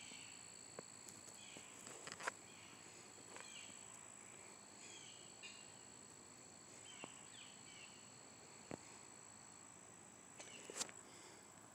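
Near silence: faint background room tone with a steady high-pitched whine, broken by a few faint short chirps and ticks.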